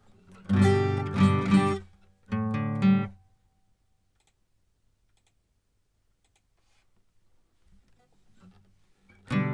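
Guitar strummed: a couple of chords ring out in the first three seconds, then near silence for about six seconds, then strumming starts again just before the end. The player reckons the guitar might be a little out of tune.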